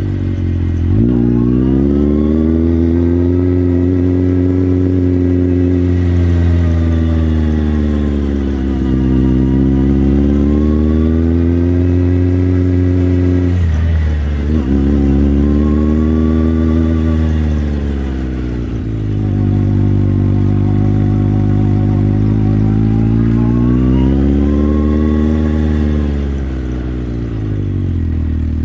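Motorcycle engine under way, its pitch rising and falling several times as the rider opens and closes the throttle, with a sudden break about halfway through, then settling to a steady low note near the end.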